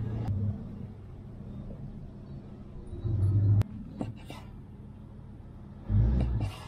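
Kitchen knife cutting through a lime on a wooden cutting board, with a sharp knock of the blade against the board about three and a half seconds in and short scraping cuts just after. Two short low rumbles, about half a second each, are the loudest sounds.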